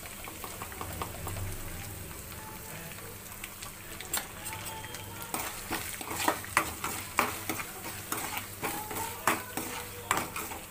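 Chilli powder, ginger-garlic paste and curry leaves sizzling steadily in hot oil in a kadai. From about four seconds in, a metal spatula scrapes and knocks against the pan several times a second as the mixture is stirred.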